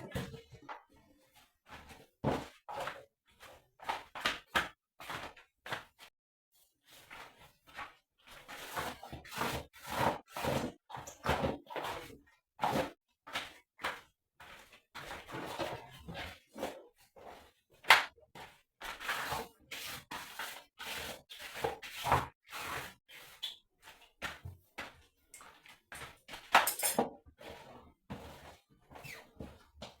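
Irregular knocks, thuds and clatter of objects being handled, with one sharp bang about 18 seconds in.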